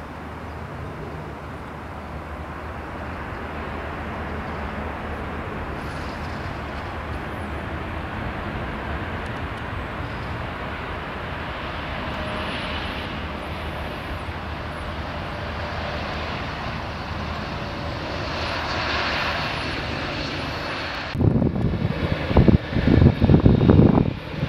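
Boeing 787 Dreamliner's jet engines rumbling steadily as the airliner rolls out along the runway after landing, growing louder as it passes. About three-quarters of the way in, loud irregular low gusts of wind buffet the microphone.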